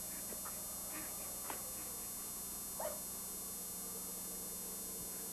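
A small dog gives a short, faint yip about three seconds in, over a steady electrical hum.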